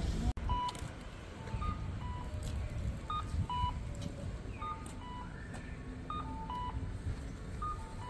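Japanese pedestrian crossing signal playing its electronic tune while the walk light is green, the cue that it is safe to cross. The tune is a string of short beeping notes at several pitches, over a low rumble of street noise.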